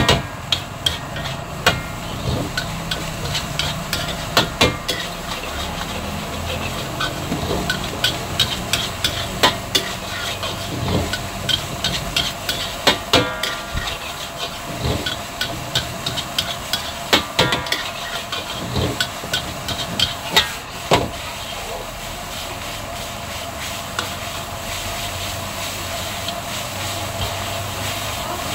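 Metal spatula clinking and scraping against a steel wok: many quick, irregular strikes for about the first twenty seconds, then they stop. A steady hiss runs underneath throughout.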